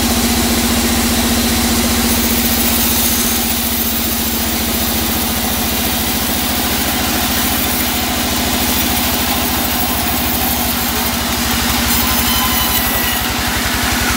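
Large vertical band saw running steadily and cutting lengthwise through a teak log: a constant machine hum with a fast, even low pulse under a hiss of blade on wood.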